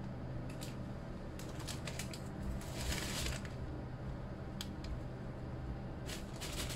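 Paper towel rustling and crinkling as it is handled and spread on a wooden cutting board: a few short rustles, a longer one about three seconds in, and a couple of light taps near the end. A steady low hum runs underneath.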